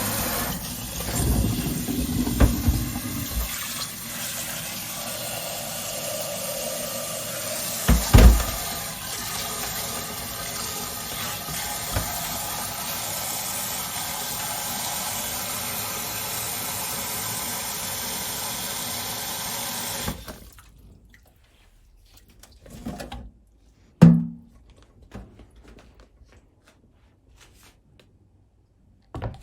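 Water running steadily from a kitchen tap into a sink, with a few knocks and splashes in the first several seconds. The water is shut off about two-thirds of the way through, followed by a couple of light knocks.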